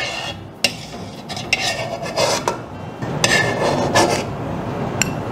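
Metal spoon scraping and clinking against an aluminium wok while fried garlic is scooped out of the oil: several separate scrapes and a sharp clink near the end.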